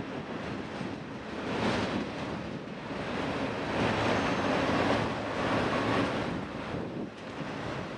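Freight train of tank cars rolling past on the rails: a steady rush of steel wheels on track that swells and eases as each car's trucks go by.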